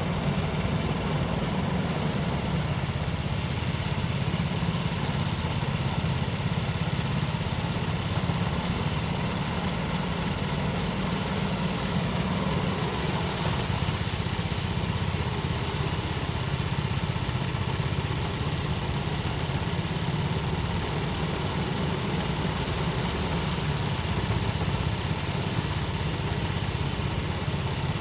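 Motorised rice thresher running at a steady speed, its small engine giving an even, unchanging hum.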